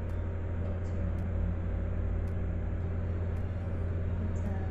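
Steady low hum with a few evenly spaced higher layers, unchanging throughout.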